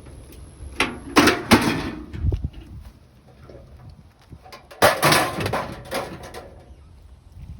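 Microwave oven door being opened and shut: sharp clunks of the door and its latch about a second in, then another cluster of clunks around five seconds in.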